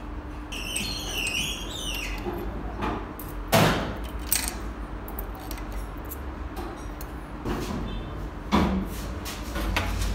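Metal parts of an inline diesel injection pump clinking and tapping as they are handled with pliers, with two sharper knocks about three and a half and eight and a half seconds in. A brief high squeak about a second in.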